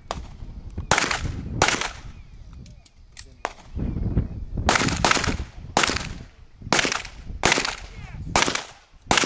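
Pistol shots fired by one shooter in a course of fire: two quick shots about a second in, a pause of about three seconds, then about seven more in quick pairs and triples, each cracking sharply and echoing briefly.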